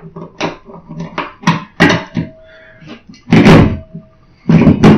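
Sharp clicks and knocks of a screw being set through a steel wall bracket into a plastic wall anchor, then two louder strikes near the end that leave the steel bracket ringing briefly.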